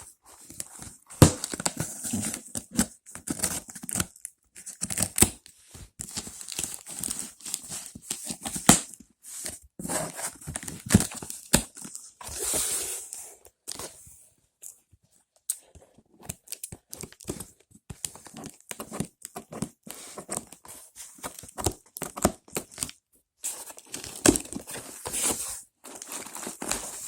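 Smartphone retail box being opened by hand: irregular tearing, crinkling and rustling of packaging, with a longer tearing stretch about twelve seconds in and a few short pauses.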